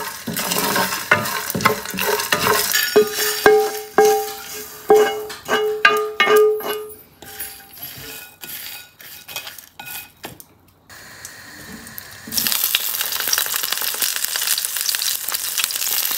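Wooden spatula stirring and scraping dry-roasting nuts and spices around a nonstick pan, then a run of sharp taps that ring out as they are scraped off onto a ceramic plate. About twelve seconds in, a steady sizzle of hot oil starts as whole aubergines fry in the pan.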